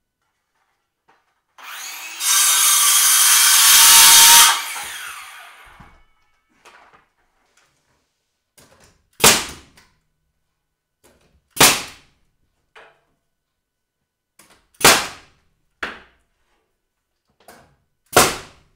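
A power saw cuts through timber for about three seconds and then winds down. Next a nail gun fires four loud shots, a few seconds apart, with fainter knocks in between, nailing timber into the wall frame.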